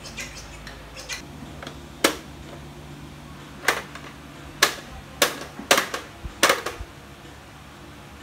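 A series of sharp plastic clacks as hard plastic toys are handled and knocked together, about eight in all: one about two seconds in, then a quick run of them through the middle.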